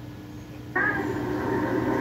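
Indistinct voices in the background over a low steady hum, starting about three quarters of a second in after a brief lull.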